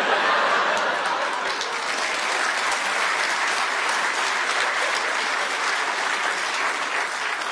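Audience applauding in a hall, breaking out suddenly and dying away near the end.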